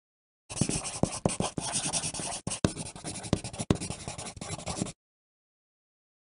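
Pencil writing on paper: a run of quick, scratchy strokes. It starts about half a second in and cuts off suddenly after about four seconds.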